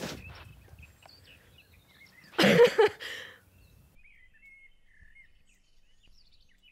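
A short, loud burst about two and a half seconds in, in two quick pulses, followed by faint bird chirps.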